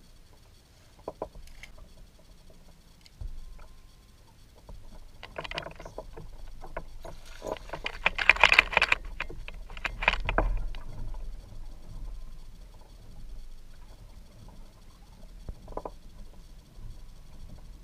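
Knocks, clicks and rustling from handling a caught bass and fishing gear in a kayak, with a louder burst of dense crackling about eight seconds in and a shorter one near ten seconds.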